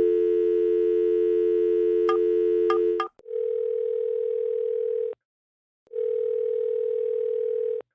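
Telephone dial tone held for about three seconds, with three short keypad beeps as a number is dialled, likely 911. Then the line rings twice with the ringback tone.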